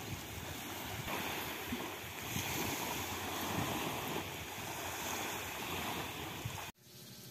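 Small waves lapping and washing over a pebble shore, with wind rumbling on the microphone. The sound cuts off abruptly near the end.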